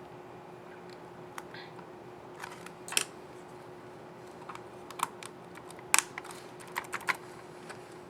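Irregular clicks of keys being pressed on a Lenovo IdeaPad L340 15IRH laptop's scissor-switch keyboard, with sharper clicks about three and six seconds in. A faint steady hum runs underneath.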